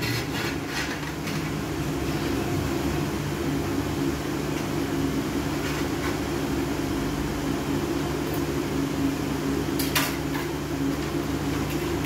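Steady low mechanical hum with a few light clicks and knocks from tile-setting work on a freshly laid floor: tiles and a tool being pressed and tapped into mortar.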